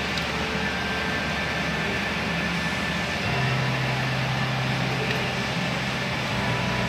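Drolet Heatpro wood furnace running with a fire burning in the firebox: a steady rushing hum, with a low hum tone coming in about three seconds in.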